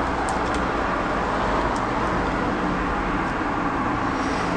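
Steady road traffic noise, an even rushing hum with no breaks.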